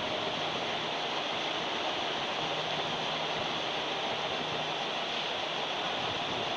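Steady, even rushing noise of water, with no distinct splashes or knocks standing out.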